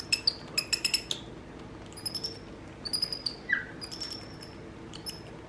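Capuchin monkey giving short, high-pitched squeaks and chirps in quick clusters of several, with one lower, falling squeal about three and a half seconds in.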